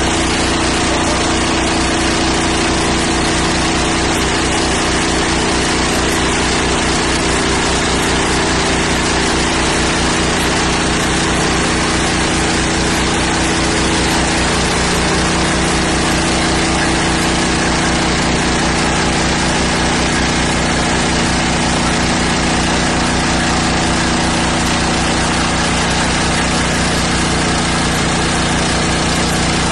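Engine of a ride-on laser screed machine running steadily at an even speed while its screed head levels wet concrete.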